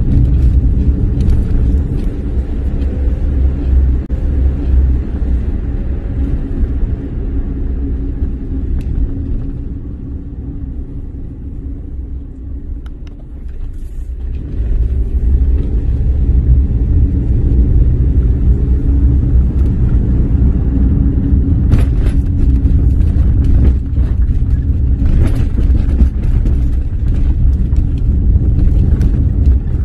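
Car engine and road rumble heard inside the cabin while driving. The sound eases off and quietens about a third of the way in, then picks up again about halfway through as the engine pitch rises, with a few brief knocks later on.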